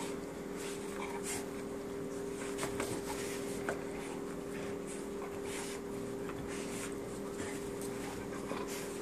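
An adult dog and a puppy play-fighting on carpet: scattered soft scuffles and mouthing noises over a steady hum.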